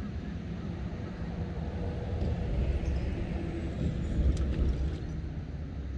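Low outdoor rumble that swells in the middle and fades again, with a few faint clicks near its peak.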